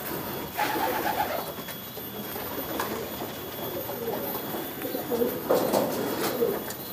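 Domestic pigeons cooing, in two louder spells: one about half a second in and another around five and a half seconds in.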